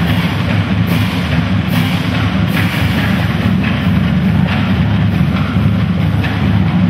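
Loud music with a heavy, steady bass-drum beat.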